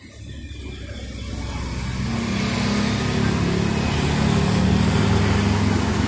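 A motor vehicle approaching along the road: engine and tyre noise growing steadily louder over the first two to three seconds and staying loud through the rest.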